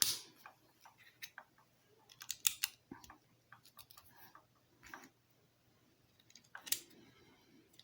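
Plastic Lego pieces being handled and pressed together: scattered sharp clicks in small clusters, with short quiet gaps between them.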